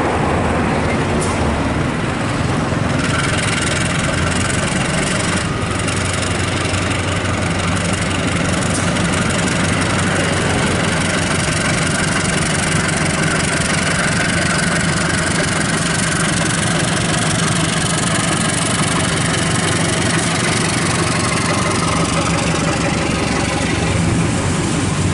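Diesel train engine running steadily at close range, with a higher steady whine joining about three seconds in.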